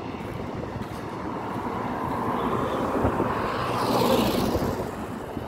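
Road traffic noise, swelling as a vehicle passes close by: the whoosh builds to its loudest about four seconds in, then fades.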